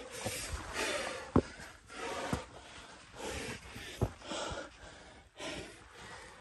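A person breathing hard from exertion on a steep climb, short noisy breaths coming about once a second, with a few sharp knocks in between.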